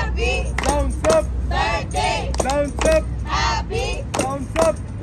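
A group of men and women singing a birthday song together while clapping along in a steady beat, about two claps a second.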